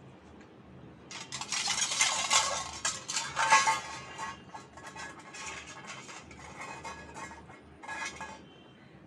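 Labrador puppy lapping milk from a stainless steel bowl, its tongue and muzzle clinking and scraping against the metal in quick rapid clicks. The lapping is loudest in the first few seconds, then goes on more quietly.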